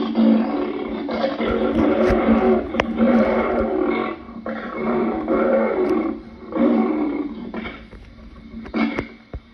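Lion roaring: a series of loud calls, each about a second long, with short gaps between them. The calls grow shorter and quieter near the end.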